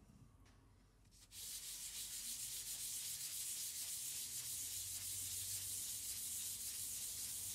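Brass part being lapped by hand on 320-grit emery paper wetted with WD-40 oil, a steady rubbing hiss that starts about a second in.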